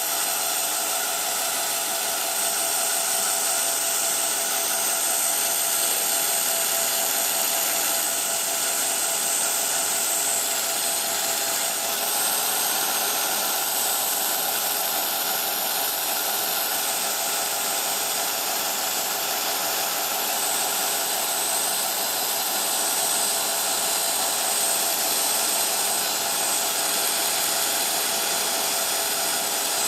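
Handheld heat embossing tool running steadily, its fan blowing hot air with a constant whine, melting embossing powder.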